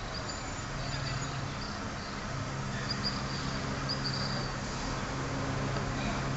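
Outdoor backyard ambience: a steady low hum under an even hiss, with short high chirps now and then.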